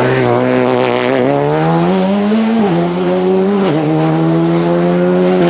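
Rally car engine accelerating hard. The revs climb, then drop sharply at two quick upshifts about two and a half and three and a half seconds in, and run nearly steady after that.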